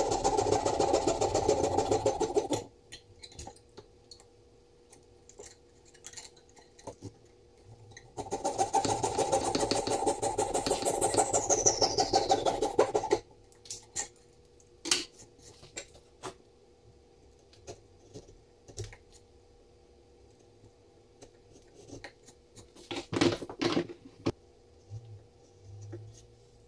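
Fret saw cutting through a beech block in rapid short strokes, its blade threaded through a drilled hole to saw out the plane's mortise: one burst of sawing stops about two and a half seconds in, a second runs from about eight to thirteen seconds, with a high whistle sliding down partway through. Between and after come scattered light clicks and taps, and a short burst of chisel scraping in the mortise near the end.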